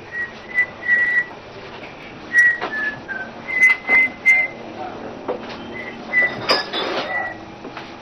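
Whistling: a string of short whistled notes, mostly held on one pitch with a few dips lower. Several knocks and rustles of things being moved about come in between, the loudest a clatter about six and a half seconds in.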